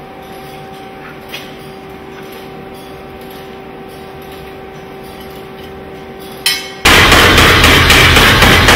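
A steady hum with two even tones comes over a coal forge fire. About seven seconds in, a power hammer starts loudly, beating a red-hot iron bar in quick repeated blows.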